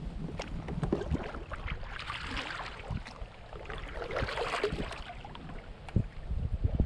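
Water splashing and lapping at a kayak's hull, louder twice, about two and four seconds in, with wind rumbling on the microphone.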